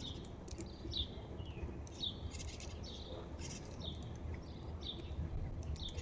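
A bird calling a short down-slurred note about once a second, with other brief chirps and ticks mixed in, over a low rumble of background noise.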